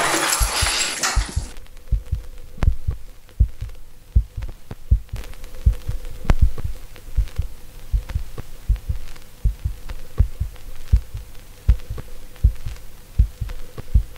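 Heartbeat sound effect: dull low thumps, two or three a second, over a faint steady hum. Electronic music cuts off about one and a half seconds in, just before the thumps begin.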